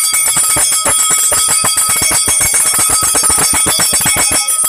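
Brass temple hand bell rung rapidly and without pause during the aarti lamp-waving offering. Quick strokes run into a continuous high ringing.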